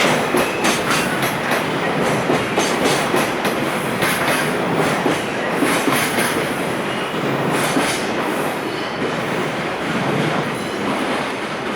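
Freight train's container wagons rolling past, wheels clattering in a repeated rhythm over rail joints, with a steady rumble of running gear.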